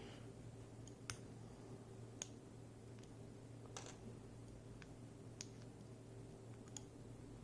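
Faint, light clicks of small lock parts (pins, drivers and springs from a pin-tumbler cylinder being gutted) set down one at a time, five clicks a second or more apart, over a low steady hum.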